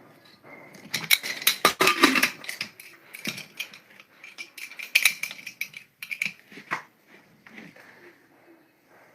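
Eating from a plate of singju and paknam: a run of quick clicks and crackly crunches, densest about a second in and again around five seconds, thinning out near the end.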